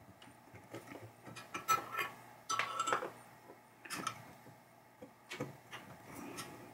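Screwdriver working the screws on the metal frame of a pinball chime box, loosening the top plate: irregular small metallic clicks and scrapes, with a short metallic ring twice near the middle.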